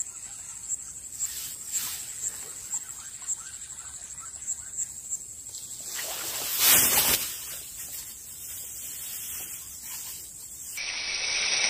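A fishing rod cast: a loud whoosh of rod and line about six to seven seconds in. Under it, a high chirp repeats about twice a second.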